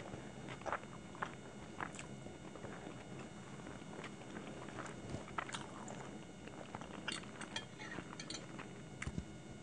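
Close-miked eating sounds: a metal fork clinking and scraping on a plate, with soft chewing and mouth clicks. The sharp clicks come thickest near the end.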